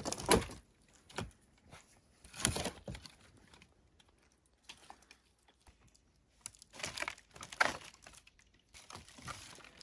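Paper napkins being torn off a roll and crumpled up as kindling, in a few short rustling bursts with quiet gaps between them.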